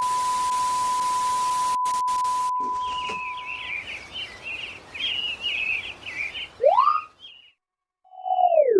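A string of edited sound effects. First a loud hiss with a steady beep tone, then birds chirping, then a short rising cartoon whistle and, near the end, a falling one.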